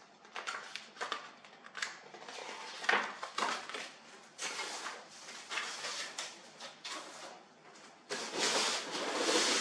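Paper and cardboard rustling in irregular bursts as a manual and papers are handled and laid into a cardboard box. About eight seconds in, a denser, continuous rustle starts as a foam packing sheet is rubbed and pulled against the cardboard.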